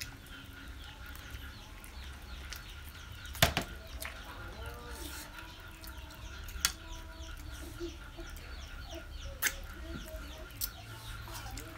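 Chickens clucking in the background, in short scattered calls. A few sharp clicks and smacks of eating chicken feet come over them, the loudest about three and a half seconds in.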